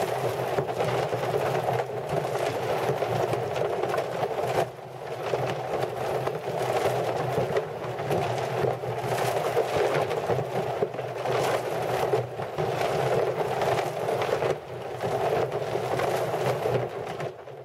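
Gravel and rocks tumbling and rattling inside a rotating plastic 55-gallon drum trommel screen, with a continuous clatter of stones and a steady low machine drone underneath.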